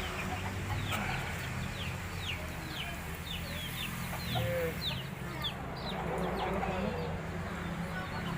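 Bird chirping: a run of short, high, falling chirps, about two a second, that dies away about six seconds in.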